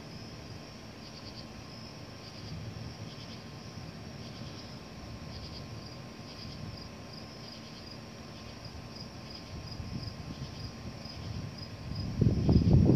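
Night insects chirping in quick repeated pulses over a faint low rumble; about twelve seconds in, a loud low rumble of thunder sets in.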